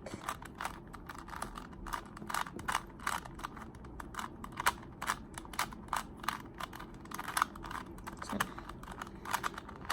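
Rubik's cube being scrambled by hand: the plastic layers turning give an irregular run of short clicks and clacks, several a second.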